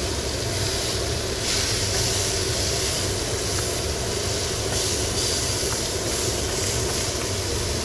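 Food sizzling in a hot frying pan over a steady low rumble. The sizzle grows louder about a second and a half in.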